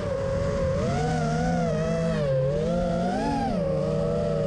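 Brushless motors of a Diatone GT2 FPV racing quadcopter whining as it flies, the pitch swooping up and down with the throttle.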